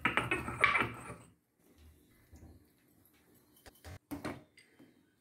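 A few sharp clinks and taps as cashew nuts are tipped from a small bowl into a steel pot and stirred with a spoon, about three and a half to four and a half seconds in. They follow a second of fading sound at the start.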